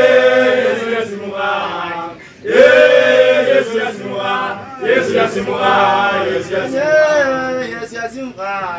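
Church choir chanting a repeated hymn refrain without accompaniment, in three long sung phrases with short breaks between them.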